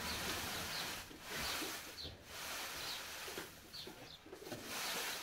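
Dry straw and wooden sticks rustling and scraping as they are shifted and poked through, in repeated swells of dry noise.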